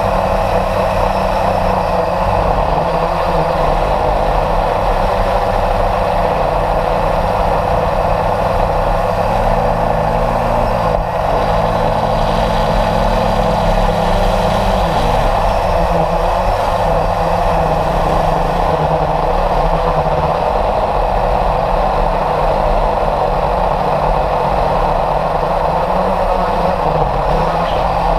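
Radio-controlled model airplane in flight, heard from a camera mounted on it: a loud, steady rush of motor and wind noise, its low hum shifting in pitch briefly around the middle.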